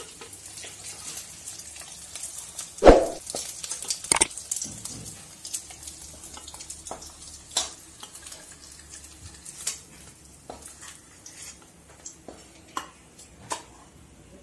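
Steel spatula scraping and clinking against a kadhai and a steel plate as fried soya chaap pieces are lifted out of hot oil, over a faint oil sizzle that fades. A sharp metal clank about three seconds in is the loudest sound, with a second one about a second later and light taps scattered after.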